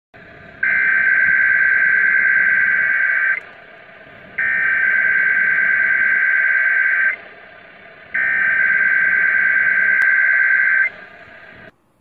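Emergency Alert System SAME header over AM radio: three bursts of two-tone digital data, each a little under three seconds long with about a second's gap between them, over a steady radio hiss that cuts off sharply just before the end.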